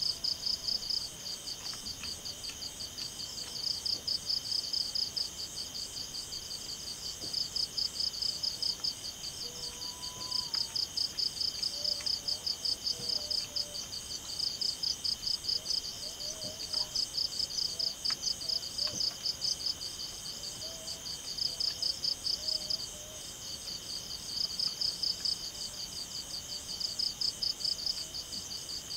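Night insect chorus of crickets: a steady high ringing, overlaid by loud trains of rapid pulsed chirps that come and go every second or two.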